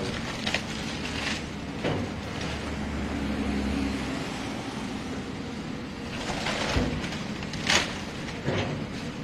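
Heavy machinery demolishing a house: an engine running steadily, with several sharp cracks and crunches of breaking material, the loudest near the end.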